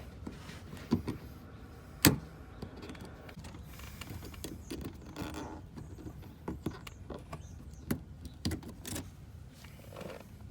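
Scattered clicks, taps and light knocks of hard plastic and metal parts being handled and fitted, with one sharp knock about two seconds in.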